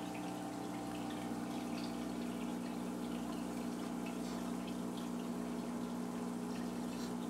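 Aquarium filter running: a steady low hum with water trickling and dripping over it.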